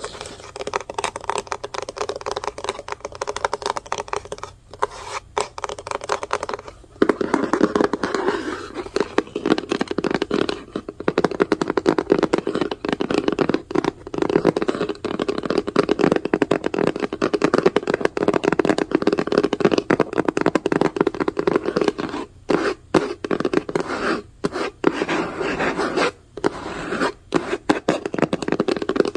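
Fast typing on a computer keyboard: a dense, continuous rattle of key clicks. It grows louder and fuller about seven seconds in, with a few brief pauses in the second half.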